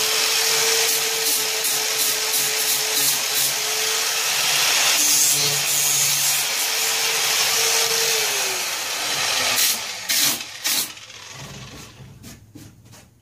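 Angle grinder sanding body filler on a fiberglass panel: a steady motor whine under a rough, loud scraping hiss. About eight seconds in it is switched off and the whine falls away as the disc spins down, followed by a few knocks.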